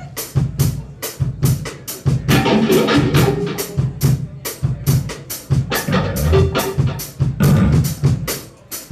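Drum kit played in a fast, steady rock beat: sharp cymbal strokes about four to five a second over kick drum and snare, busier in two short stretches.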